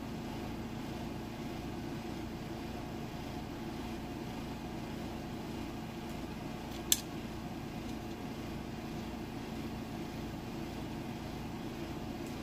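Steady background hum, with one sharp tick about seven seconds in as steel tweezers pick at the small brass lock pins in a pinning tray.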